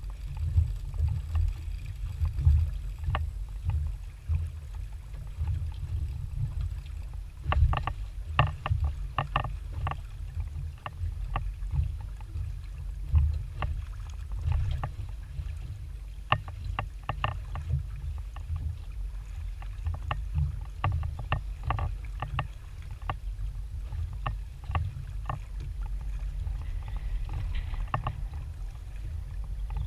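Small aluminium boat rocking on sea water: a steady low rumble of water and wind on the microphone, with irregular light clicks and knocks coming in clusters.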